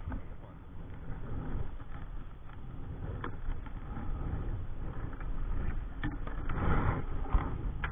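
Wind rumbling on the microphone of a camera worn in a kayak, with fabric brushing against it and a few sharp knocks, the loudest near the end.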